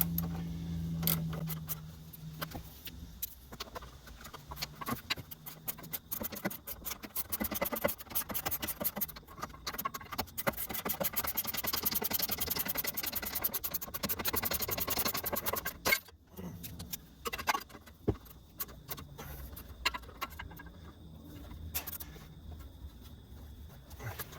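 Ratchet wrench clicking in quick runs as the sway bar link nuts are run down and tightened, with scattered metallic clinks of tools. A low hum fades out over the first couple of seconds.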